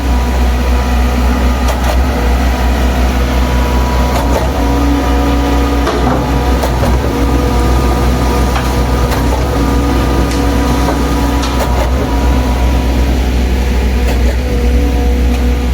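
Concrete mixer pump's engine running steadily with a low, heavy hum, and occasional sharp metallic knocks from the machine.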